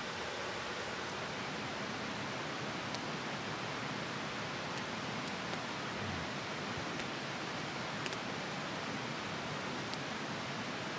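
Steady, even rush of distant flowing water, with a few faint ticks here and there.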